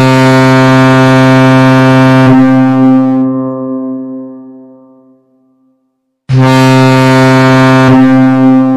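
Electronic toy ship playing a loud ship's-horn sound through its small speaker. Two long, steady horn blasts come about six seconds apart, and each trails off over a couple of seconds.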